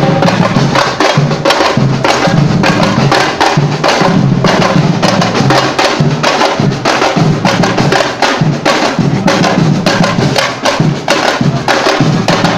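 Street percussion band playing a fast samba-style rhythm: dense, sharp stick strokes on small hand-held frame drums (tamborims) over steady low bass drum beats and snare drums.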